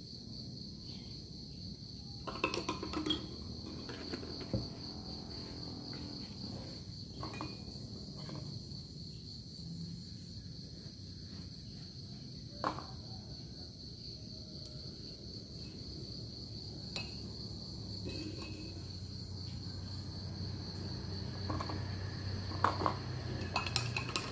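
Crickets trilling steadily in a continuous high note, with a metal spoon now and then clinking against a glass jar as a drink is stirred; the clinks come thickest near the end.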